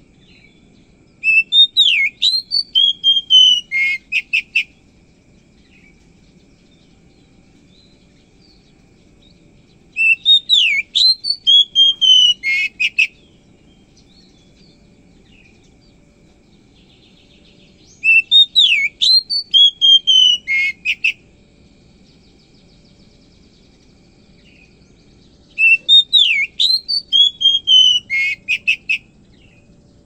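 Oriental magpie-robin singing: four loud phrases, each about three seconds long and about eight seconds apart. Each phrase is made of sweeping whistles and ends in a quick run of sharp notes.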